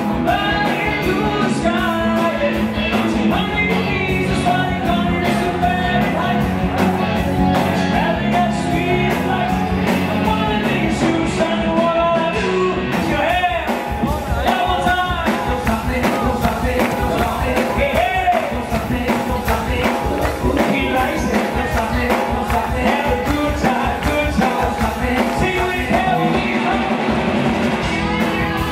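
Live rock band playing with a male lead singer: drums keeping a steady beat under bass, electric guitar and keyboards.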